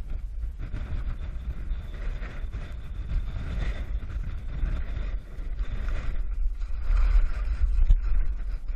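Wind buffeting the microphone of a skier's action camera during a downhill run, a constant low rumble, with skis hissing and scraping over snow. It grows louder near the end.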